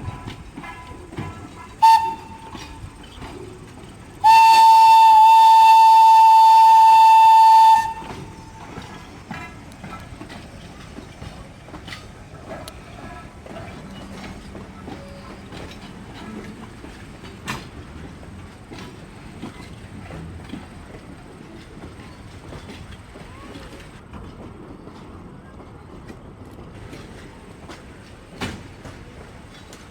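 Locomotive whistle: one short toot about two seconds in, then a long, loud blast lasting about three and a half seconds. A train rolls along the track under it, with the clicks of the rails.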